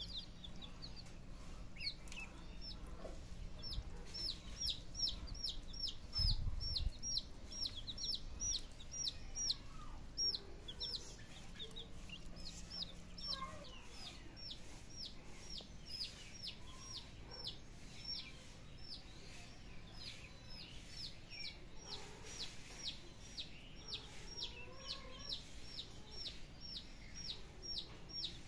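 Young poultry peeping: a near-continuous run of short, high, falling peeps, about four a second, with a couple of short pauses. A brief low rumble about six seconds in.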